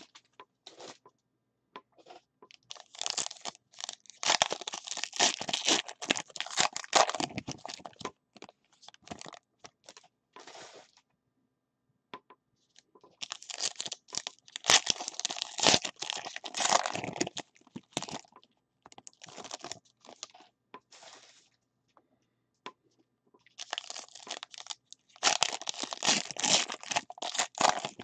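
Foil wrappers of trading-card packs crinkling and tearing as the packs are opened and the cards pulled out. The sound comes in three main bouts of rustling, roughly ten seconds apart, with a few short crinkles between.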